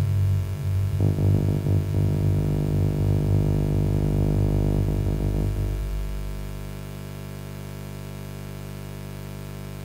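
Low synthesizer drone from a modular synth run through a Korg Monotron Delay, fading out about six seconds in and leaving a steady low mains hum.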